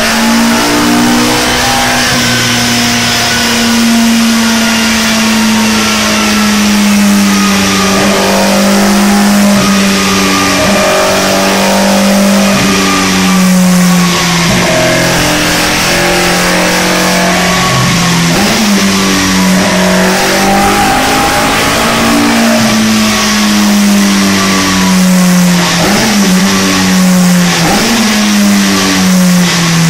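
Alfa Romeo 33 16v race engine, a 1.7-litre flat-four on Jenvey individual throttle bodies, running loud at high, held revs under load on a rolling-road dyno. The pitch sags slowly, rises and falls again, with a few brief dips, then the revs drop near the end.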